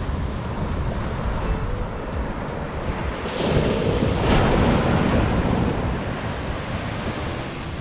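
Ocean waves breaking on a beach, with wind buffeting the microphone; a wave crashes and swells louder about three and a half seconds in.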